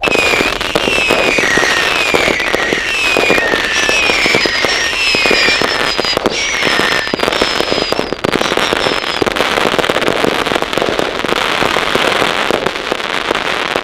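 Night Blossom 4-piece, 176-shot aerial finale set of consumer firework cakes firing: a dense, continuous barrage of shots and bursting breaks. Short falling whistles repeat over it, about one a second, through the first two-thirds.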